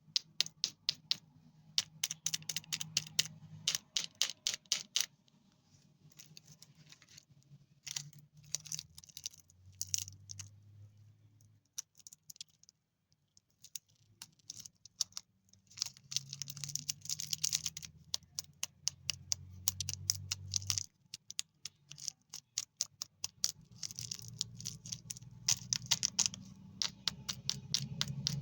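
Candy wrappers and packaging being handled and unwrapped close up: quick runs of crisp clicks and crinkles, with short pauses between them.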